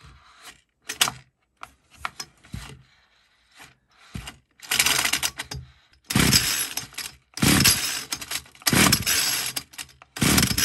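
Small two-stroke engine cranked by its recoil starter, five pulls about a second and a half apart, each a short rasping whirr that dies away without the engine firing, after a few light clicks. The owner suspects the oversized see-through crankcase is keeping it from drawing fuel.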